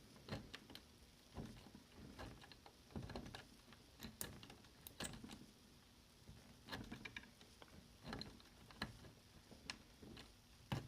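Faint scattered clicks and scrapes of a metal shim working the number wheels of a briefcase roller combination lock, the wheels being turned to feel for the flat spot.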